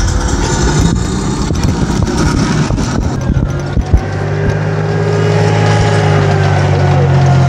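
Engine running at idle, a rumbling mix at first that settles into a steady low hum from about halfway. A single sharp knock about four seconds in.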